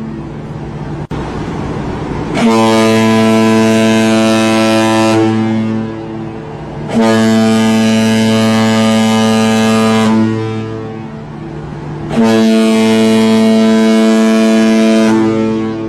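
Ship's horn sounding three long, deep blasts of about three seconds each, a second or two apart, with a fainter horn tone lingering between them.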